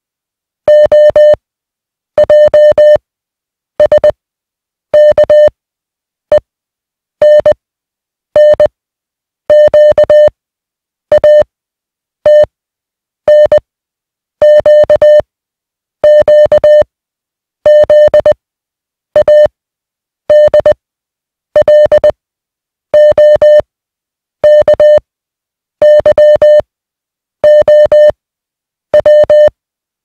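International Morse code sent as a mid-pitched electronic beep tone: single letters keyed at 20 words per minute, each a short run of dots and dashes, with a silent gap of about a second between letters, roughly two dozen letters in all.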